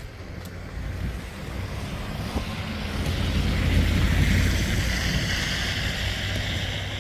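A vehicle's tyres hissing through slush and water on a wet road, the hiss swelling about three seconds in and easing off, over a steady low rumble of wind on the microphone.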